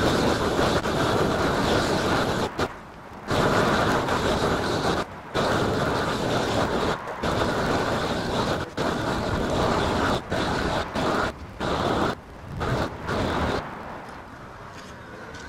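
Propane roofing torch burning with a loud, steady roar as it heats a torch-down modified-bitumen roll to melt its tar onto the roof. The roar cuts off abruptly and comes back several times, then stops near the end.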